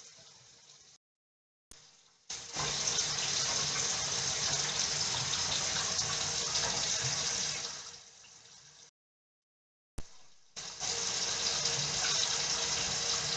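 Bathroom sink faucet running hot water into the basin, a steady rushing hiss. The sound falls away twice for two to three seconds and comes back.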